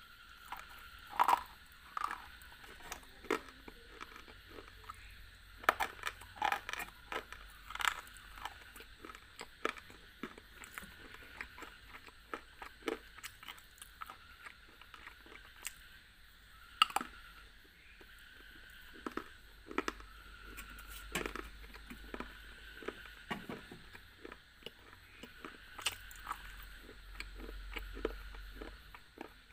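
Hard white chalk-like block bitten and crunched close to the microphone: sharp, irregular snaps as pieces break off, with quieter gritty chewing between bites.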